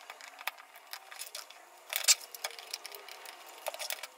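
Small plastic clicks and taps as the body shell of an OO-gauge model steam locomotive is pressed and fitted back onto its chassis by hand, irregular, with the loudest cluster about two seconds in.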